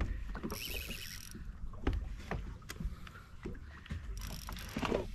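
Small open boat at sea: water slapping the hull under a low rumble, with scattered knocks and clicks from handling the tackle, and two short spells of hiss, about half a second in and near the end.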